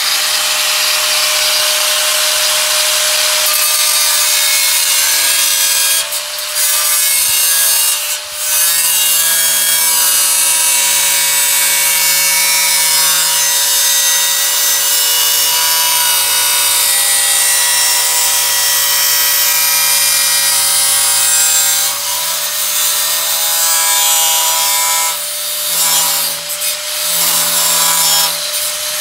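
Power cutting tool cutting about a quarter inch off the lip of a metal car floor pan so the pan will sit flush: a steady high whine over a loud hiss, easing off briefly a few times, most often near the end.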